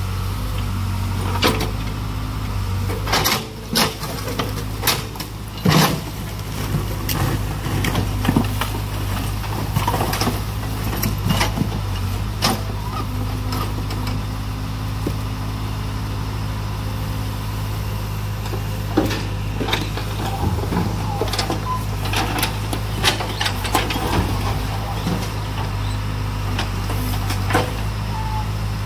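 Backhoe loader's diesel engine running steadily, with scattered sharp knocks and clanks from the work, the loudest of them in the first six seconds.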